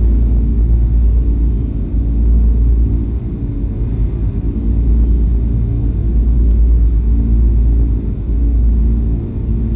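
A loud, steady low rumbling drone made of held deep tones, swelling and easing slightly every second or two, with nothing in the upper range.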